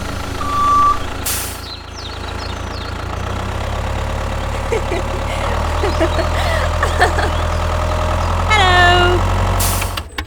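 Vehicle engine running steadily as a low drone, with a short beep about half a second in and a brief hiss soon after. Near the end, a high squeaky call falls in pitch, followed by another short hiss.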